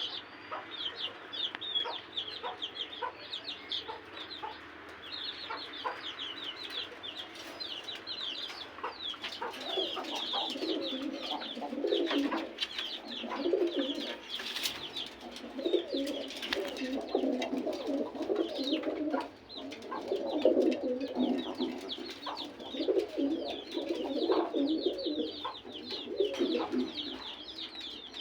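Domestic pigeons cooing in repeated low pulsing calls, which come in strongly from about a third of the way in. Quick, high chirping from other birds continues throughout.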